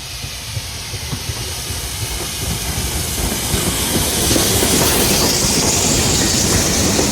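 Steam locomotive 5029 Nunney Castle, a GWR Castle-class four-cylinder 4-6-0, running in with rapid exhaust beats and steam hiss, growing louder as it approaches; a strong hiss builds about four seconds in.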